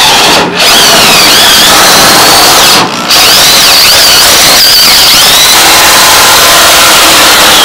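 Cordless drill with a step drill bit boring through the steel top rail of a Chevy pickup's bed: loud motor whir and grinding, with a high wavering squeal from the bit cutting metal. The drilling stops briefly about three seconds in, then carries on.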